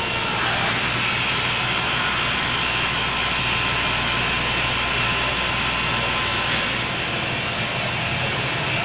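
CHEROKEE SZM-9S nine-motor glass straight-line edging machine running: a steady mechanical hum under an even hiss from its motors and grinding wheels.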